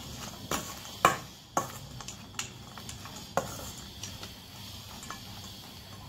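Metal spoon stirring and tossing a chopped onion, tomato and dried-fish mixture in a stainless steel bowl, with sharp clinks of spoon on bowl about every half second, fewer after about three and a half seconds.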